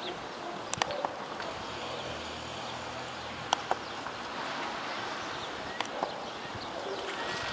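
Scattered distant gunshots over steady outdoor background noise: a close pair about a second in, one sharp shot around three and a half seconds, and another near six seconds.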